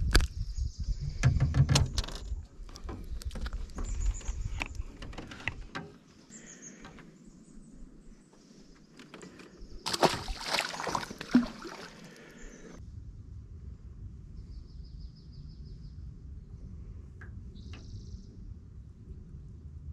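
Clicks and knocks against the aluminum john boat as a largemouth bass is unhooked by hand. About ten seconds in, a splash as the bass is released into the water. After a break, a few short bird chirps over a steady low background.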